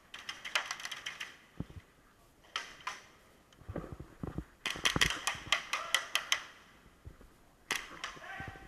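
Airsoft guns firing on full auto in four bursts of rapid clicking shots, about ten a second, the longest and loudest burst about halfway through.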